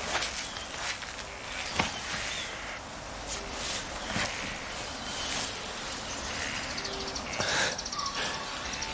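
Quiet background ambience: a steady hiss with a few faint clicks and rustles.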